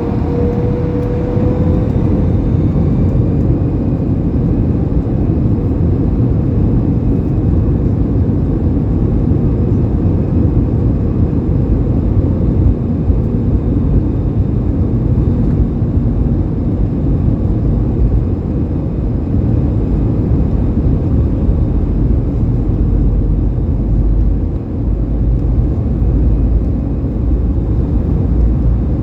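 Airbus A320 jet engines heard from inside the cabin at high thrust: a loud, steady low rumble, with a faint whine rising in pitch over the first couple of seconds.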